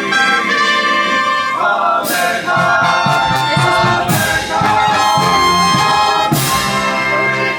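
Brass music with trumpets and trombones playing sustained chords, punctuated by a crash about every two seconds.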